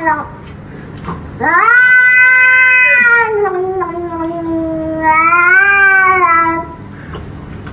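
Domestic cat giving one long, drawn-out yowl of about five seconds, starting about a second and a half in; its pitch sags in the middle and lifts again near the end.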